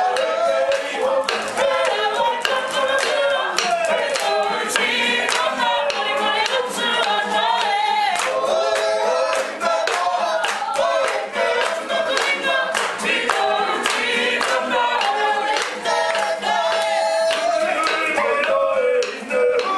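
Māori performing group singing a waiata together, men and women's voices in unison, with sharp taps keeping a steady beat throughout.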